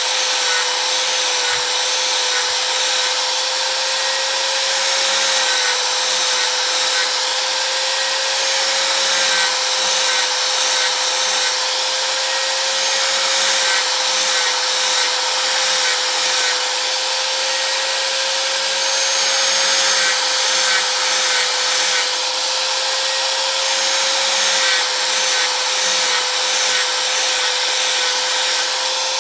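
Power sanding disc running steadily with a high motor whine, abrading a piece of sonokeling root wood held against it; the whine dips slightly in pitch now and then over a constant gritty hiss.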